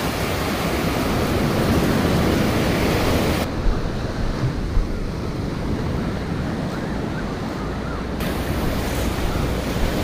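Ocean surf washing up the beach as waves break, with wind buffeting the microphone. The sound turns duller for several seconds in the middle, and a couple of short low thumps come about four and five seconds in.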